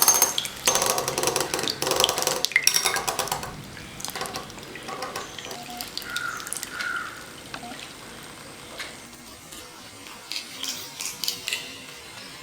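Homemade electric egg beater whisking egg yolks in a bowl, with clattering and splashing for about the first three and a half seconds, then fainter scattered clicks and taps.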